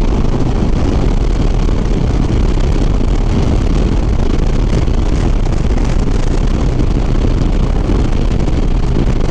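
Harley-Davidson Sport Glide V-twin at highway cruising speed: a steady engine drone under loud wind rush over the microphone.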